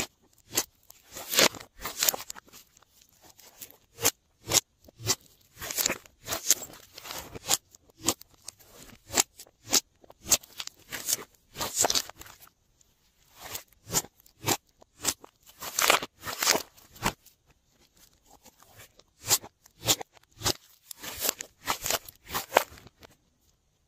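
Glossy slime being kneaded, stretched and squeezed by hand, giving irregular runs of wet, sticky clicks and crackling pops, with a short lull about three-quarters of the way through.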